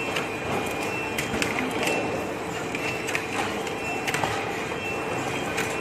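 Packaging line running: a friction feeder and belt conveyor give a steady hum, with a higher whine that comes and goes. Scattered sharp clicks mark the instruction leaflets being fed out into the phone boxes.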